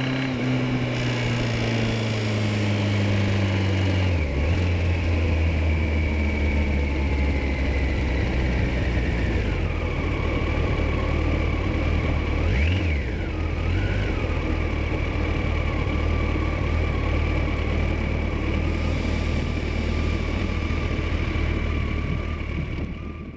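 Kawasaki ZX-14 inline-four engine running, its revs falling for the first few seconds and then settling to a steady idle, with a brief blip of the throttle about halfway. The engine has a knock that a new cam-chain tensioner has not cured; the owner suspects a broken bronze cage or bushing, likely in the gearbox. The sound cuts off just before the end.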